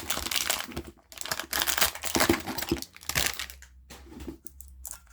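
Plastic packaging crinkling as it is handled, followed by a few light clicks near the end.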